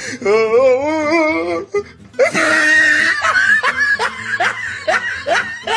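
A high voice warbling with a wobbling pitch, then a shrill cry and a run of short rising laughs, over music.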